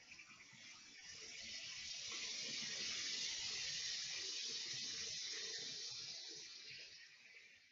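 A gust of wind rushing through pine trees and tall grass, swelling over the first couple of seconds, holding, then dying away near the end, with faint low rustling under it.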